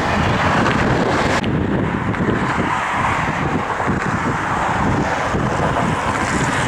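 A car driving at speed: steady road and wind noise, with the hiss easing slightly about a second and a half in.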